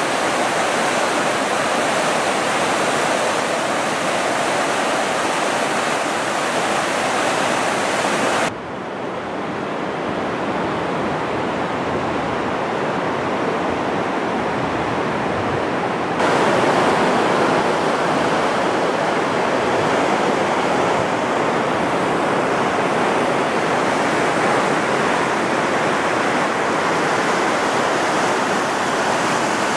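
Steady rushing of river water over rapids. About eight seconds in it cuts to a duller, quieter rush, and about eight seconds later it jumps back to the loud, bright rushing.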